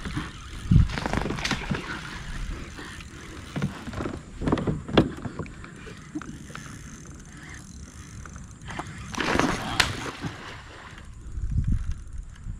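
Gear being handled aboard a fishing kayak: scattered clicks and knocks, a louder rustling burst about nine seconds in, and a low rumble near the end.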